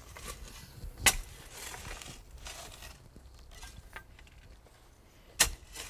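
Clamshell post hole digger being slammed into soil to dig a fence post hole. Two sharp strikes stand out, one about a second in and a louder one near the end, with quieter clatter between.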